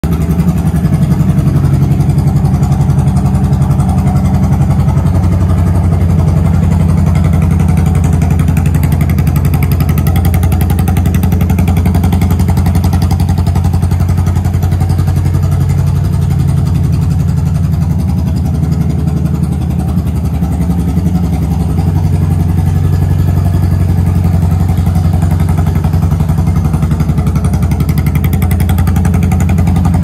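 Yamaha SR400's air-cooled single-cylinder four-stroke running steadily at idle, breathing through a Keihin CR carburettor with a K&N pod filter and exhausting through an aftermarket silencer.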